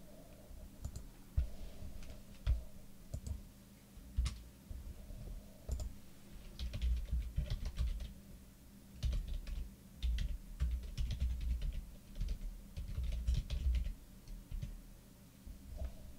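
Typing on a computer keyboard: scattered keystrokes at first, then quick irregular runs of typing from about six seconds in, as names are entered into a list.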